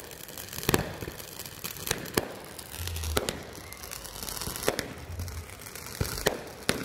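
A ground-launched consumer fireworks cake firing shot after shot: about eight sharp bangs at irregular intervals, with crackling in between.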